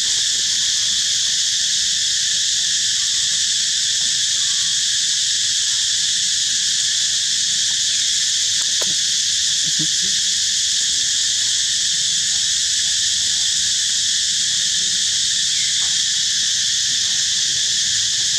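A steady, high-pitched chorus of insects, droning without a break.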